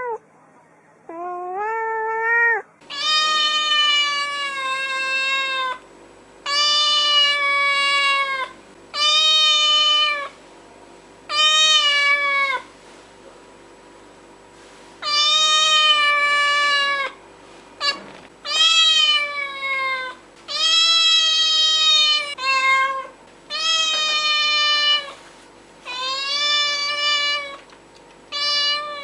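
Domestic cat meowing over and over: about a dozen long, drawn-out meows, each one to three seconds long, separated by short pauses.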